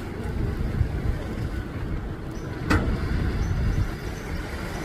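Steady low rumble of an express passenger riverboat under way, with one sharp knock a little past halfway.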